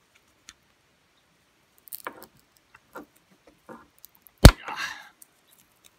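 Diagonal cutters biting into hard plastic potting around a small electronic component: a few small clicks and crunches, then one sharp snap about four and a half seconds in as a piece cracks off, with a short rattle after it.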